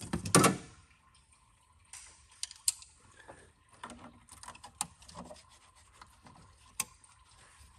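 Hands working a wiring harness and plastic lines in a diesel engine bay, with scattered sharp clicks and faint rubbing as the parts are pulled and folded aside.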